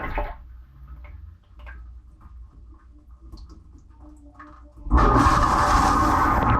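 Dishwasher heard from inside the tub: the water spray stops, leaving a low hum and a few small drips and clicks. About five seconds in, the wash pump starts again and water sprays loudly against the walls.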